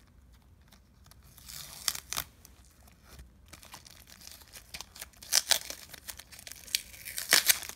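Blue masking tape being peeled off a clear plastic bag, the thin plastic crinkling in the hands: a string of short rasps and crackles, loudest near the end.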